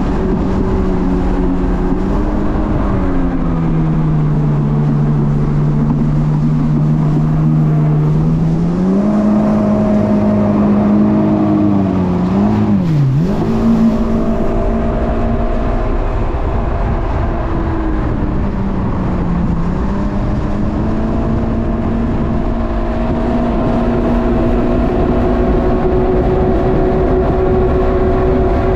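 Jet ski engine running under way, its pitch falling and rising as the throttle changes: easing off about three seconds in, picking up again near nine seconds, a quick dip near thirteen seconds and climbing again near the end, over a steady rush of water.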